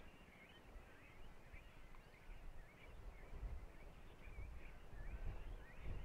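Faint chorus of small songbirds chirping and twittering throughout, with low rumbling gusts of wind on the microphone, strongest a little after the middle and near the end.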